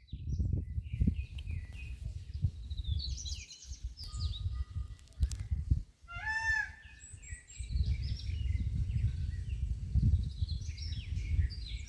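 Newly hatched chicks peeping, many short high chirps overlapping, with one longer, lower arched call about six and a half seconds in. A low rumbling noise runs under most of it and is the loudest part.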